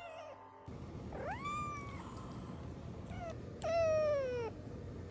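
Domestic cat meowing: a drawn-out meow that rises and then holds, a short chirp-like meow, then a louder long meow that slowly falls in pitch.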